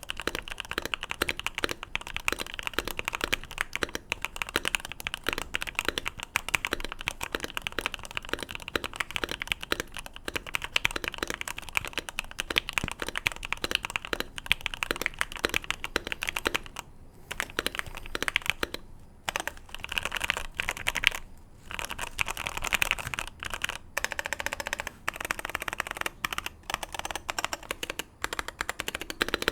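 Fast, continuous typing on a modded Keychron Q1 gasket-mounted mechanical keyboard, fitted with a force-break mod, a tape mod and PE foam in the case. The keystrokes are dense, with a few brief pauses in the second half.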